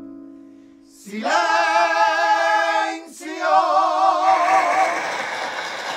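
A chord strummed on a Spanish guitar rings and fades away. About a second in, a male vocal group starts singing a held chord in close harmony with vibrato. The voices break off briefly about three seconds in, then start a second phrase.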